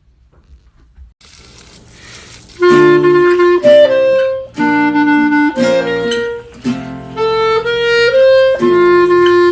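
Music: after about a second of near silence, a melody of held, reedy notes starts loudly about two and a half seconds in.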